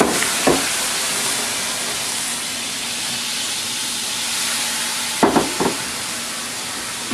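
Dry white wine sizzling in a hot pan as it deglazes the browned fond, a loud steady hiss that eases a little. A few short knocks against the pan about half a second in and again around five seconds in.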